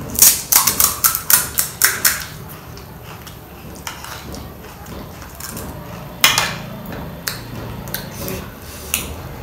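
Crisp, hollow pani puri shell cracking under a thumb: a quick run of sharp crackles in the first two seconds, then a few separate clicks and taps later on.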